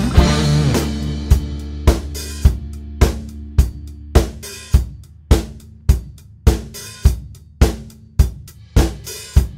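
Background music: a steady drum beat, about two hits a second, over a held low note, opening with a cymbal crash and slowly getting quieter.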